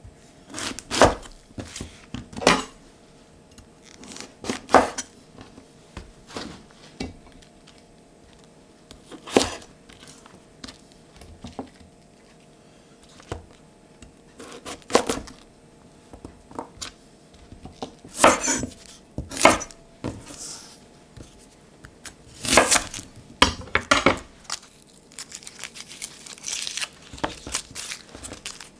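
Chef's knife cutting through a white cabbage and knocking on a wooden chopping board: irregular crunchy cuts and knocks, each a second or more apart, some in quick pairs.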